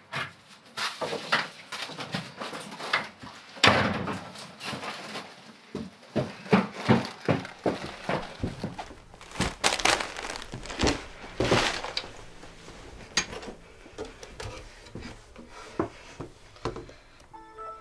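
Rustling of clothing and paper with many light knocks and thuds as a person takes off a coat and handles things at a table.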